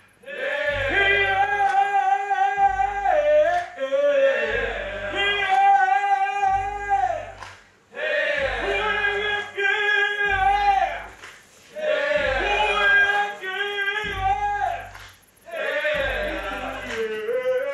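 Male ensemble singing a chain-gang work song in harmony, in phrases of a few seconds with short breaks between them, over a low, regular beat about once a second.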